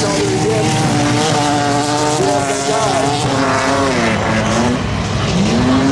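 Six-cylinder jalopy race cars racing, engines revving hard. The engine pitch falls from about three to four and a half seconds in as the cars lift off, then climbs again near the end.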